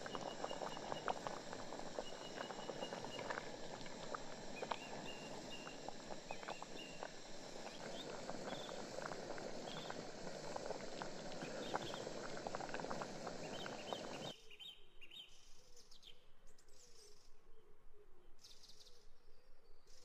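Whole potatoes boiling in an aluminium pot of water, a steady bubbling with many small pops, while birds chirp now and then. The bubbling cuts off abruptly about two-thirds of the way through, leaving quieter outdoor birdsong with a low wavering call.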